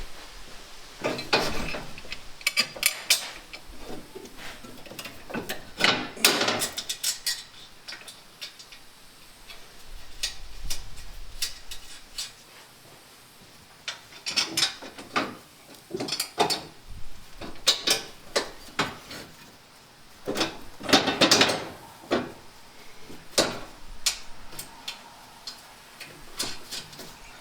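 Hand tools and metal parts clinking and knocking in irregular clusters of sharp clicks, with quieter gaps between them, as parts are fitted and bolted in place.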